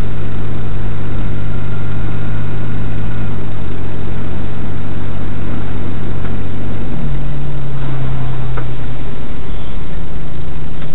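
Vehicle engine and road noise while driving, a loud steady drone whose engine note shifts about three seconds in and again about seven seconds in.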